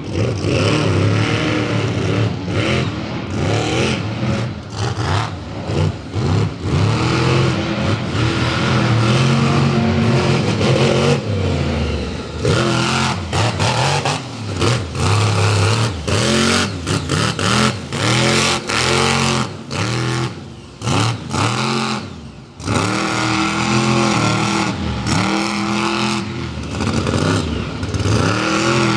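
Scarlet Bandit monster truck's engine revving hard over and over, the pitch climbing and falling with each throttle stab, with sudden drops as the throttle is cut.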